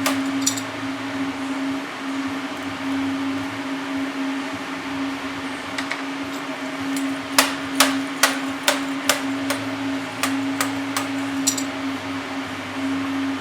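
Steady machine hum with one constant tone. A run of about a dozen sharp hammer-like knocks, roughly two a second, comes from about six seconds in to near the end.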